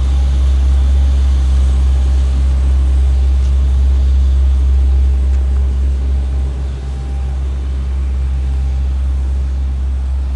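CAT mini road roller running as it compacts asphalt pavement: a steady, loud, low engine rumble that dips briefly about six to seven seconds in.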